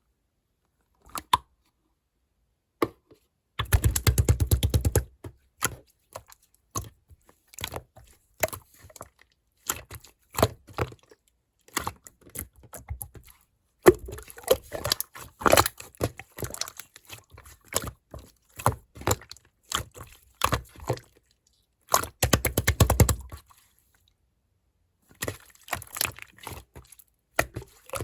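Pink clear slime being squished and stretched by hand, making sticky clicks and pops in irregular runs. Two dense, louder bursts of squelching clicks come about four seconds in and again about twenty-two seconds in.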